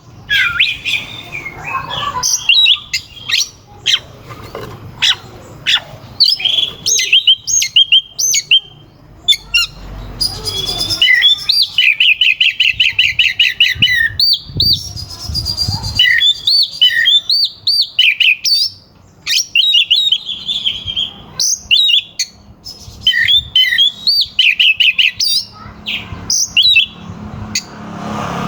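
Oriental magpie-robin (kacer) singing hard in full song: rapid trills of repeated notes, harsh chattering and sharp upswept whistles, delivered in quick bursts with brief pauses between phrases.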